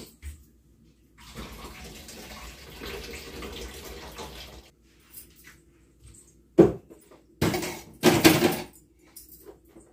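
Kitchen tap running for about three seconds, then a sharp knock and two louder clattering bursts of pots or dishes handled at the sink.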